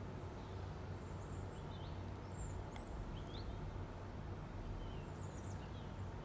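Hot oil sizzling and bubbling steadily around black-eyed pea fritters deep-frying in a pan. Faint bird chirps come through a few times.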